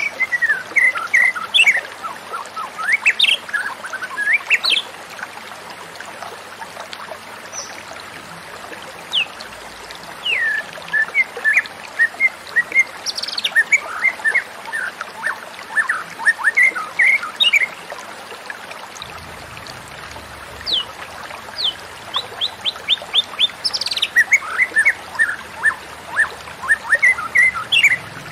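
White-rumped shama singing: three bursts of rapid, varied whistles, chirps and quick runs of notes, with short pauses between them.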